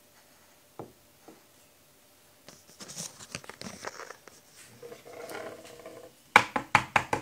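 Rustling and handling noise as a phone is moved, then near the end a quick run of loud knocks on a door.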